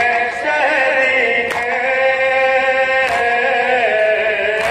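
A man's voice chanting a nauha, an Urdu mourning lament, in long drawn-out notes that bend in pitch, without instruments. A sharp slap comes about every second and a half, keeping time with the lament: the mourners' matam, chest-beating.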